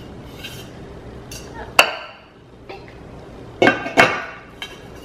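Hard-anodized nonstick saucepan being handled and set on a stone countertop: a sharp metallic clink with a brief ring about two seconds in, then two more clinks close together near the end, with light rustling between.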